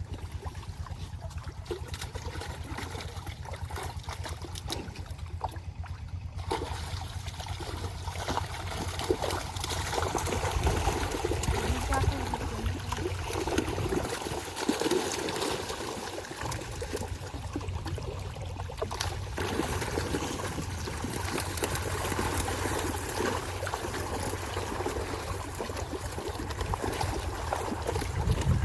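Pond water splashing and trickling as fish are netted out of a fish pond, the splashing growing busier and louder after about six seconds, over a steady low rumble.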